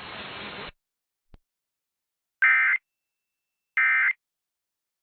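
Emergency Alert System digital data bursts (SAME end-of-message code): two short, raspy digital warbles about a second and a half apart, following a brief hiss that cuts off and a faint click. They mark the end of the EAS test message.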